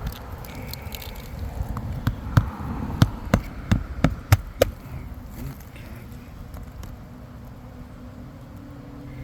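Hammer driving roofing nails into a three-tab asphalt shingle: a run of about eight sharp strikes, roughly three a second, over a steady low outdoor rumble.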